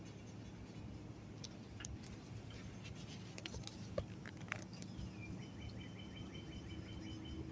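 Raccoons feeding on dry cat food, giving scattered sharp clicks and crunches, the loudest about four seconds in. Then a high, rapidly repeated chirping trill of about two seconds, over a low steady hum.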